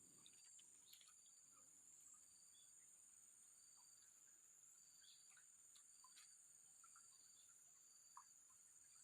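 Near silence outdoors: a faint, steady high-pitched insect drone, with a few faint, scattered bird chirps.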